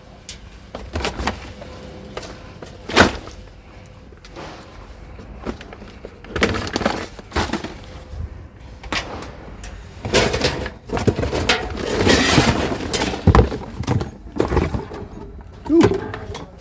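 Rummaging through rubbish by hand: scattered knocks and clatter of objects being shifted and pulled out, with a sharp knock about three seconds in and longer spells of rustling and clattering later on.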